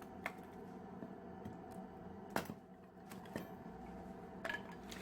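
About four short, sharp clicks or knocks over a faint steady background hum, the loudest about two and a half seconds in.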